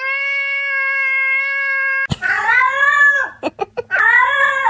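A perfectly steady held tone for about two seconds, then a cat gives two long, drawn-out meows, each rising and then falling in pitch, with a few short clicks between them.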